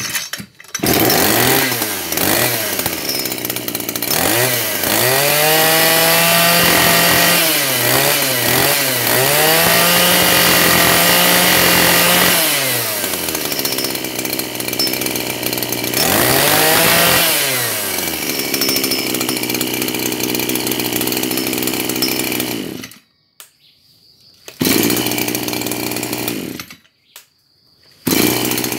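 A Maruyama KC230RS 23 cc two-stroke brush-cutter engine is pull-started and catches at once. It is revved up and down several times, settles to a steadier idle, and cuts off about 23 seconds in. It is then started again, runs for a couple of seconds and stops near the end.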